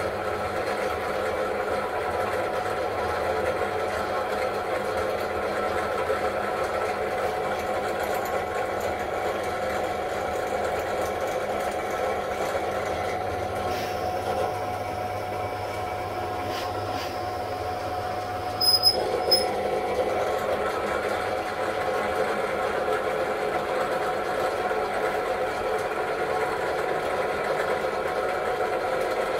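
Benchtop drill press running steadily, its motor humming as an 8 mm bit is fed down into a wooden board. A couple of sharp clicks come a little after two-thirds of the way through.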